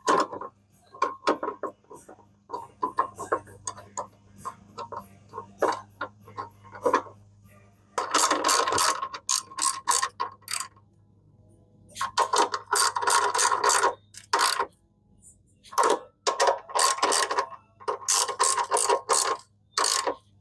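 Hand socket ratchet clicking as bolts on a McLane reel mower are turned: scattered single clicks at first, then about halfway through four runs of rapid ratcheting, each lasting a couple of seconds.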